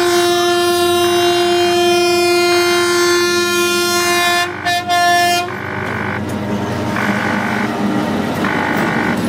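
Diesel locomotive's horn sounding one long steady blast, broken briefly and then cutting off about five and a half seconds in, after which the locomotive's engine and wheels rumble past. A pulsing tone comes and goes about every one and a half seconds throughout.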